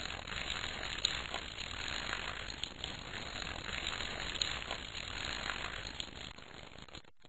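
Water sprinkling steadily from a watering can onto the ground, a continuous hiss with scattered small crackles.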